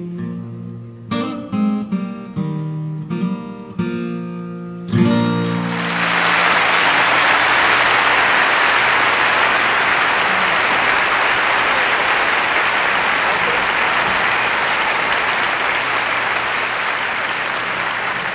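Acoustic guitar playing the closing notes and strums of a song, ringing out about five seconds in, then an audience applauding steadily.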